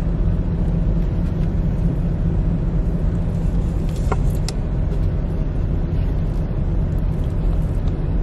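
Semi-truck's diesel engine idling, a steady low rumble heard inside the cab, with a couple of light clicks about four seconds in.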